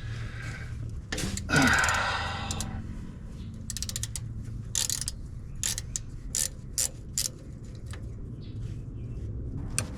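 Hand tools worked on the starter bolts: a socket wrench ratcheting in fast runs of clicks, with sockets and metal tools clinking in between, over a steady low hum.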